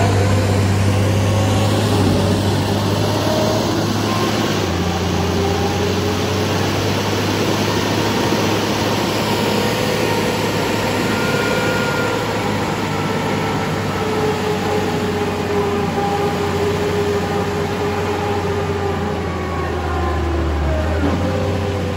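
Cable logging yarder's diesel engine running steadily under load, with faint whines rising and falling over it. The engine's pitch drops a little about four and a half seconds in and shifts again near the end.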